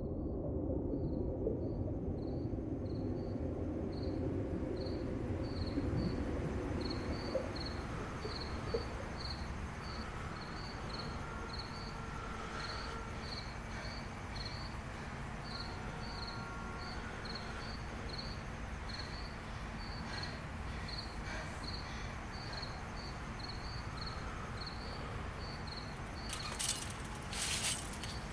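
Cricket chirping in a steady, even rhythm, about one and a half high chirps a second, over a low rumbling hum. A few sharp rattling clicks near the end.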